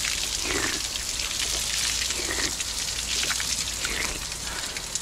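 Water pouring steadily from a stone spout and splashing onto the stone below, with a few short slurping sips as a man drinks from his cupped hand.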